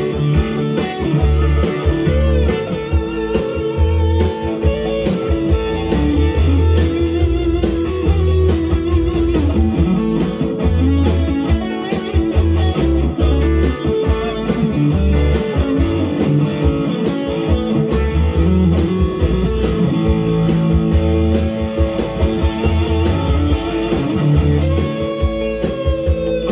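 Harley Benton HB TE-30 Telecaster-style electric guitar playing country lead lines over a country train-beat backing track in A, with a string bend near the end.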